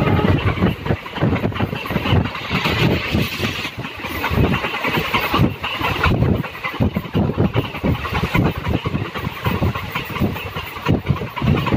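Passenger train wheels running over the rails at speed, a continuous rattle and clatter of rapid, uneven knocks, heard from an open carriage window.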